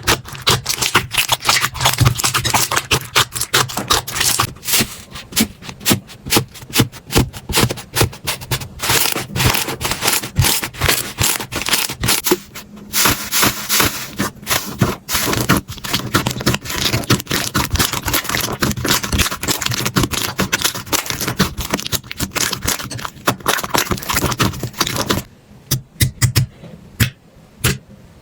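Slime being squeezed and worked by hand, giving a dense stream of crackling clicks and pops. The texture changes about twelve seconds in, and the sound gets quieter and sparser near the end.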